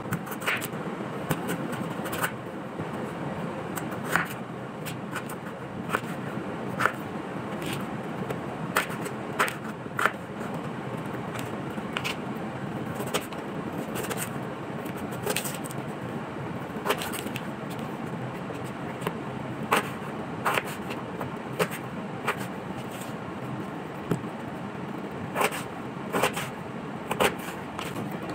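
Raw potato being peeled with a small knife: short, irregular scraping strokes of the blade on the skin, over a steady background hiss.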